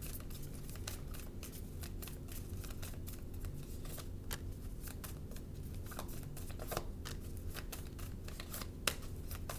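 A tarot deck being shuffled by hand: a run of quick, irregular card clicks and slaps.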